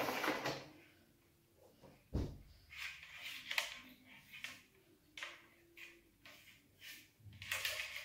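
Handling noise as a ring light is taken out of its cardboard box and its cables are untangled: a sharp knock about two seconds in, then scattered short rustles and scrapes.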